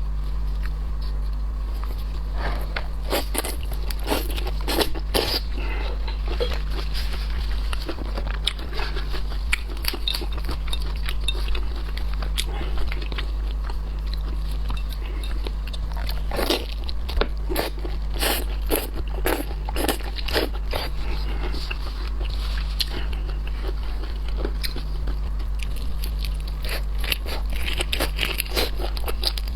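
Close-miked crunching and crackling of shrimp shells while eating, irregular crisp snaps, with chewing, over a steady low hum.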